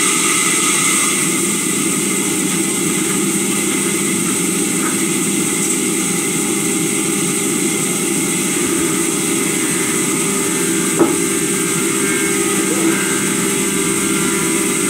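Sawmill saw machinery running steadily, a continuous mechanical hum with a high hiss, and one sharp knock about eleven seconds in.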